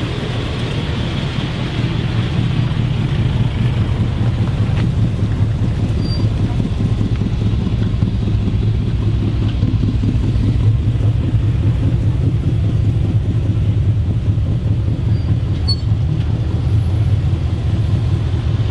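A car engine running steadily with a low rumble, getting a little louder about two seconds in.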